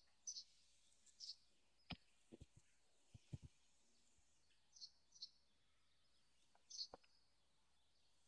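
Faint, short bird chirps, repeated every second or so, over near silence, with a scattering of soft sharp taps, most of them bunched between two and three and a half seconds in.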